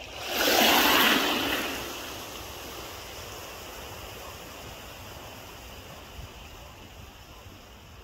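A sea wave breaking: a sudden loud rush of water about half a second in that fades over a second or so into a steady wash.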